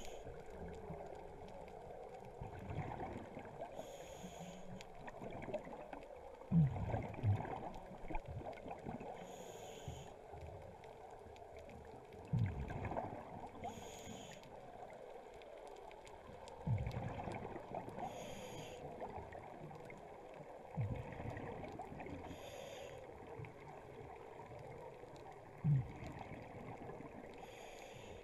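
A scuba diver's breathing through a regulator, heard underwater, over a steady underwater hiss. Each breath comes about every four to five seconds: a short hiss from the regulator, then a louder rumbling burst of exhaust bubbles.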